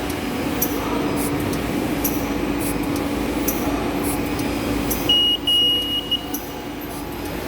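Gur-is BSF1200 bottom seal bag machine running steadily, with a constant hum, a dense mechanical clatter and repeated sharp clicks. About five seconds in, a high electronic beep sounds for about a second in three short pulses.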